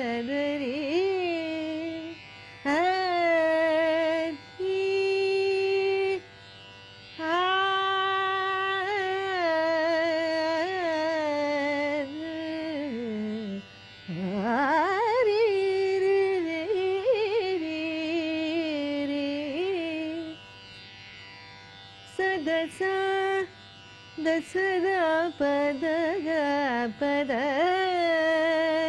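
A woman's voice singing a wordless Carnatic alapana in raga Mohanam, with held notes shaken by wavering gamaka ornaments. Phrases are broken by short pauses. About halfway through the voice slides deep down and sweeps back up, and near the end the notes come shorter and quicker.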